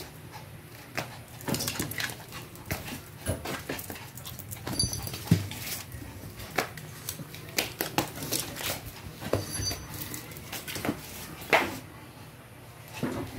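Shih tzu whimpering in fear of a cologne spray bottle held at it, among scattered short clicks and sharp sounds.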